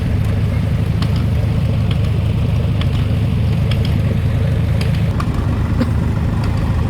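Engine running steadily at a low, even pitch.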